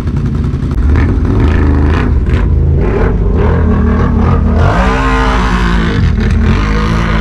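Can-Am Renegade XMR 1000R ATV's V-twin engine revving hard as the quad accelerates away in sport mode, getting louder about a second in.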